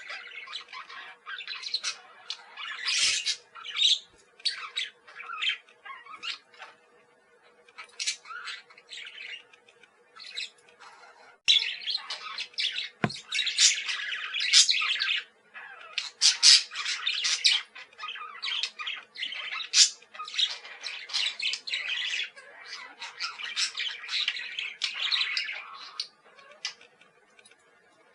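Parakeets chattering, a busy run of quick overlapping chirps and squawks, loudest in the middle of the stretch. Two sharp clicks stand out, a few seconds in and about halfway through, over a faint steady hum.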